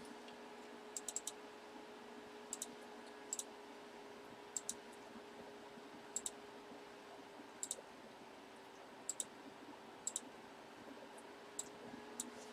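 Faint computer mouse clicks, mostly double clicks, about every one to one and a half seconds, over a low steady electrical hum.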